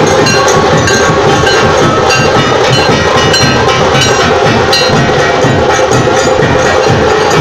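Loud festival-procession percussion: dense metallic clanging over drumming, beating without a break.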